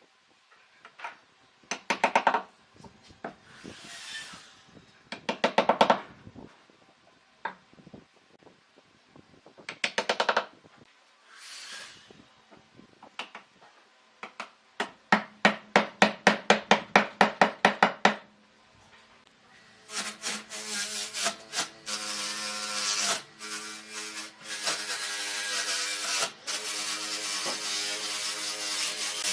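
Tools working wood: several short bursts of quick back-and-forth strokes, the longest lasting about three seconds. About two-thirds of the way in, a continuous machine noise, like a power tool running, takes over.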